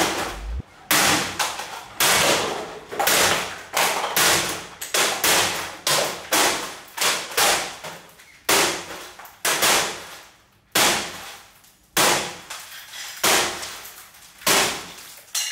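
A rapid series of heavy blows smashing old electronics and appliances with blunt tools swung two-handed: about one or two crashing, clanging strikes a second, each ringing out briefly before the next.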